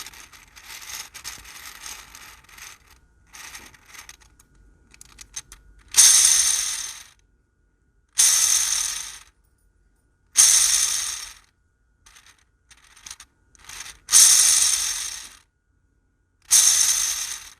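Spinner dice spun one after another: a few seconds of light clicking and rattling, then five separate spins, each a loud ratcheting whir that fades out over about a second as the spinner slows.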